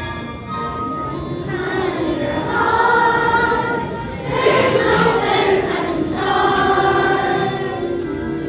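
A children's choir singing together over music. The voices grow louder about two seconds in, dip briefly, then swell again about four and a half seconds in.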